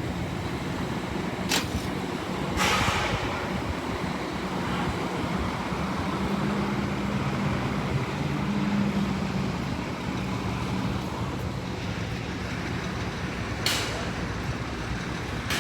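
Heavy-duty pickup truck running steadily in four-wheel drive through deep construction-site mud, with engine and tyre noise. A few brief knocks come about one and a half seconds in, about three seconds in and near the end.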